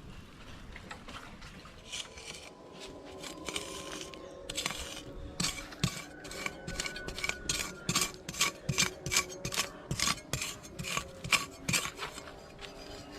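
A metal utensil clinking and scraping against a cooking pot or bowl in quick repeated strokes, about two to three a second, as food is stirred or mixed. The strokes start a few seconds in and stop near the end.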